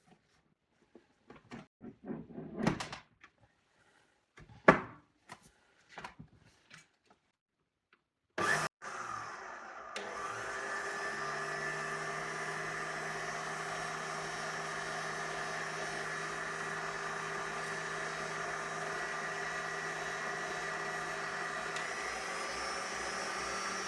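Clatronic KM2718 1000 W stand mixer being handled and reassembled, with scattered clicks and knocks. About eight seconds in it is switched on and runs steadily with a whine. It has a newly fitted motor and is running normally again.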